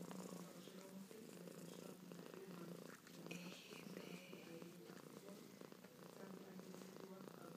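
Domestic grey tabby cat purring steadily while being scratched under the chin, its head right up against the microphone.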